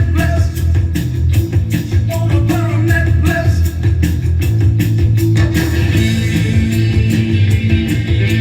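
Rock song with singing, electric guitar and a steady beat; the vocal drops out about halfway through and the guitars carry on.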